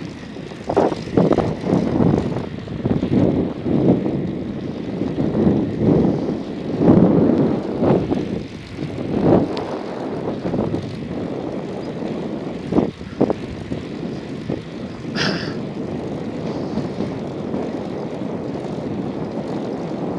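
Wind buffeting the microphone while moving along a road, in irregular gusts for the first half and a steadier rush after. A brief high squeak about fifteen seconds in.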